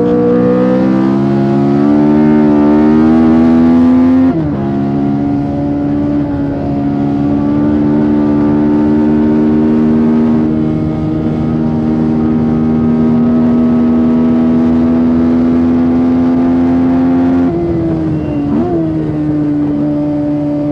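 On-board engine of the six-wheeled Tyrrell P34 at racing speed, its Ford Cosworth DFV V8 revving up and dropping sharply with an upshift about four seconds in. It then pulls steadily with the revs slowly climbing for a long stretch, and falls in two steps near the end as the car shifts down.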